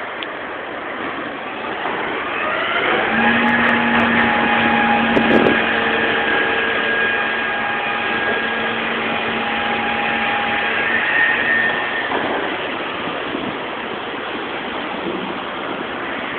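A vehicle's motor running under a steady rush of noise. Its pitch rises about two seconds in, holds steady for several seconds, then falls away near the end.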